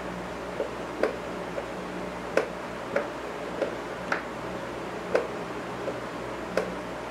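Sharp clicks at irregular intervals, about one or two a second, over a steady low hum.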